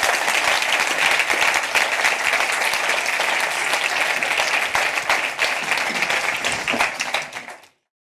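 Audience applauding: many hands clapping in a dense, steady patter that cuts off abruptly near the end.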